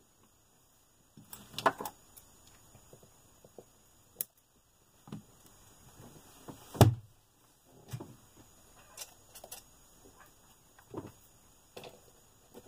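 Hand-work noises on a plastic RC buggy transmission: scattered small clicks, taps and tape rustles as electrical tape is wrapped on the output shaft and the drive cup is tried on, with one louder knock about halfway through.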